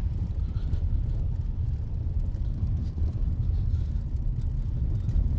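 Steady low road rumble heard inside a car driving slowly over icy, snow-packed streets.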